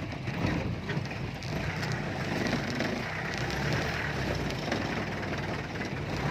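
Mahindra DI diesel engine running steadily, its raw exhaust note a continuous low rumble.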